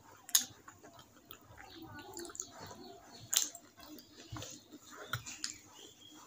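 Eating rice and curry by hand: fingers squishing and mixing the food on the plate, with chewing and mouth smacks. A run of short sharp clicks, the loudest a little under half a second in and about three and a half seconds in.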